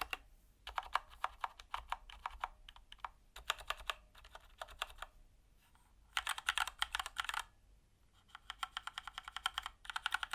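Keychron K2 aluminium mechanical keyboard with linear Keychron red switches being typed on: bursts of quick key clacks separated by short pauses. In the last burst a faint metallic ping rings under the keystrokes, the ping this board has when typing.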